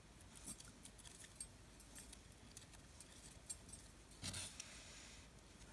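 Faint handling sounds of braided nylon cord being threaded through a knot, with scattered light metallic clicks from thin metal bangles on the wrist, and one brief louder noise about four seconds in.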